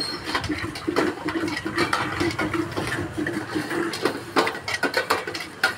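Steel bowls clinking and knocking while a hand stirs and smears yogurt around a steel bowl, in a quick run of short clicks and clatters.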